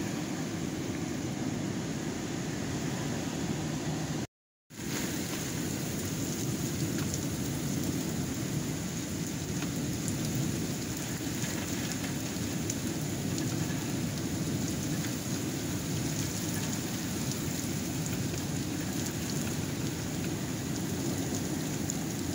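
Thunderstorm heard at a window: steady heavy rain and storm noise, cutting out briefly to silence about four seconds in.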